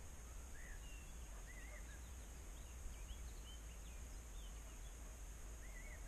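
Faint wild birds chirping: many short rising-and-falling whistled notes scattered through, over a steady low rumble.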